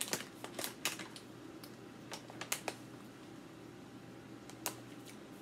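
Faint, scattered light clicks and crinkles of a plastic jelly bean bag being handled, most of them in the first three seconds and one more near the end.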